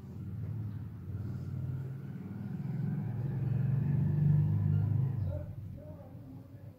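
Low rumble of a passing motor vehicle, building up, loudest about four seconds in, then fading away.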